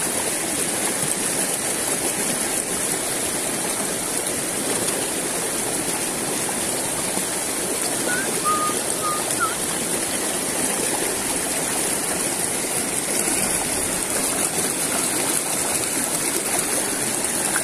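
Shallow rocky stream running: a steady rush of flowing water over stones.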